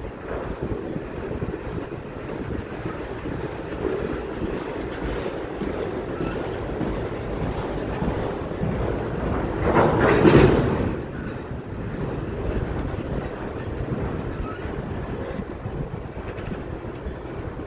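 CSX freight train rolling past: a steady rumble of railcar wheels on the rails with clickety-clack over the joints, swelling briefly to its loudest about ten seconds in.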